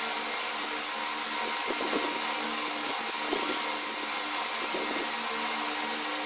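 A steady machine hum with hiss, and a few faint short scuffs about two, three and five seconds in.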